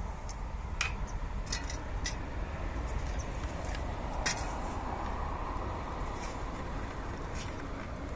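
Scattered light clicks and taps of dry twigs being handled and dropped into a tin-can wood stove, over a steady low rumble.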